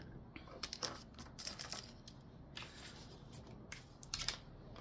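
Blank paper cards being handled, a few short, crisp paper rustles.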